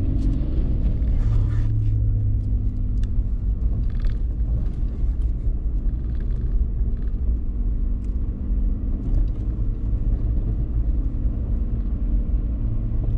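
A 2018 Nissan Frontier Pro-4X's 4.0-litre V6 and drivetrain rumbling steadily as the truck crawls along a rough dirt track. A few light clicks and knocks come now and then.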